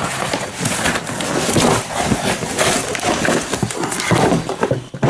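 Cardboard shipping box being opened and rummaged through: flaps and packaging rustling and scraping, with irregular knocks as the boxed tool is lifted out.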